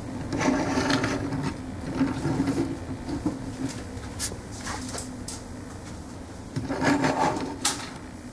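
A plastic Transformers toy car being handled and turned over on a wooden tabletop: irregular rubbing and scraping with small plastic clicks, in a few bursts separated by quieter stretches.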